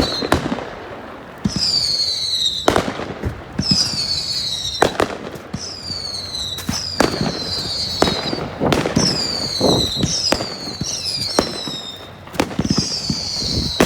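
Consumer fireworks firing in quick succession. Each shot is a sharp bang followed by a whistle that falls in pitch, about one a second.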